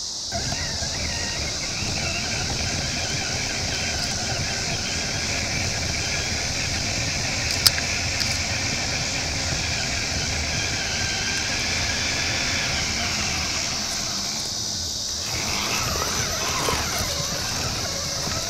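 Axial Wraith RC rock crawler driving over dirt and rocks: its electric motor and geared drivetrain whine steadily over rough rumbling from the ground. A single sharp click comes a little under halfway through.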